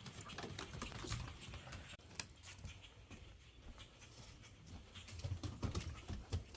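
Faint footsteps and rustling of people and dogs walking through brush: scattered small clicks, with a few soft low thuds near the end.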